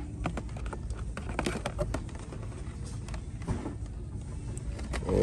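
Clicks and light crackles of plastic toy-car blister packs being handled and pulled off metal peg hooks, over a steady low hum.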